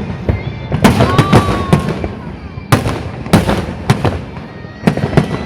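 Fireworks exploding: a quick cluster of bangs about a second in, then separate bangs around three and four seconds and another group near the end, with faint gliding whistles between them.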